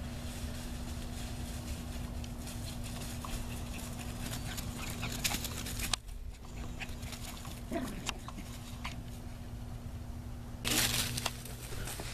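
Small dogs playing and running over grass and dry fallen leaves, with scattered light rustles and clicks. About eight seconds in there is a short dog whine that falls in pitch. Near the end comes a brief loud rush of rustling noise.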